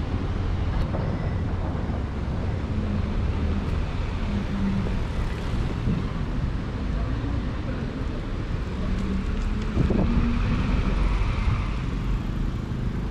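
City street ambience: passing road traffic making a steady low rumble, with one sharp knock about ten seconds in.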